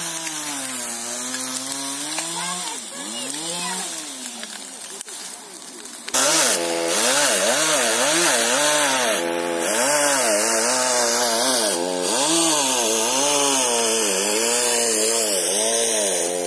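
Two-stroke chainsaw cutting through a felled tree trunk, its engine pitch rising and dropping again and again as the chain bites into the wood and eases off. It gets much louder about six seconds in.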